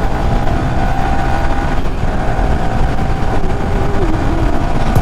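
Yamaha R15 V3 motorcycle on the move: steady engine hum mixed with heavy wind rumble on a helmet-mounted lapel mic. About four seconds in, a tone drops slightly in pitch.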